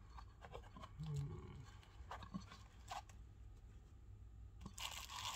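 Faint handling of a watch's packaging: small clicks and scrapes of the cardboard box and foam cushion. A louder rustling crinkle of the plastic bag around the watch starts near the end.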